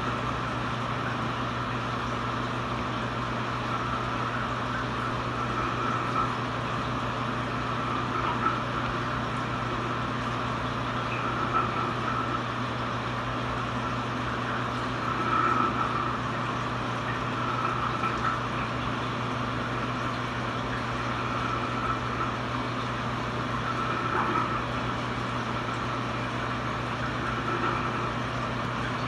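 Steady low hum and rushing water of a reef aquarium's circulation pumps running.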